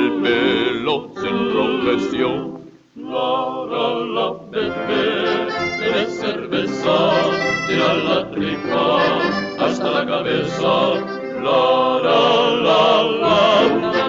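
Male vocal group singing a Tyrolean-style song with accordion accompaniment. The music breaks off briefly just before three seconds in, then resumes.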